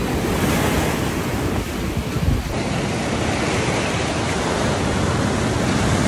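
Ocean surf breaking and rushing in as a steady wash of noise, with wind buffeting the microphone.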